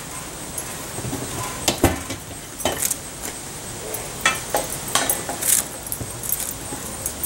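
Irregular metallic clinks, rattles and knocks from a wire basket and the steel-drum stove's fittings being handled.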